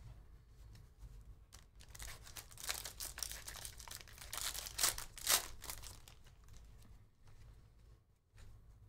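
Wrapper of a Bowman Draft Jumbo trading-card pack being torn open and crinkled: a few seconds of crackling with two sharp rips near the middle.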